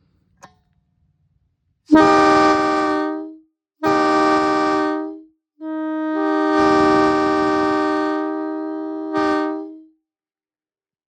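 Locomotive air horn sounded on compressed air: a faint click, then two short blasts and one long blast, each a steady chord that stays on one pitch. The long blast swells briefly louder near its end.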